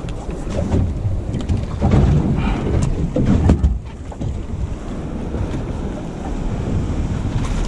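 Wind buffeting the microphone over the wash of the sea around a small boat, with a few knocks on the deck.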